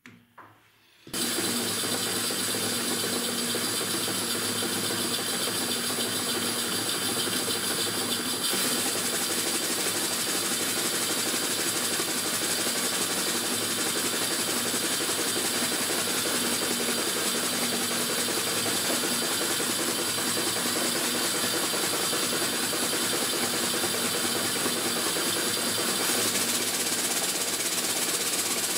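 Stuart No.1 model steam engine running on compressed air: a steady, rapid mechanical clatter of exhaust beats and moving parts that starts about a second in, just after the air line is coupled. Its speed varies as it runs.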